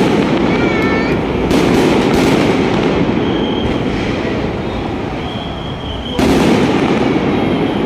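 Aerial fireworks display: a continuous dense crackle of bursting shells and comets, surging louder about a second and a half in and again about six seconds in.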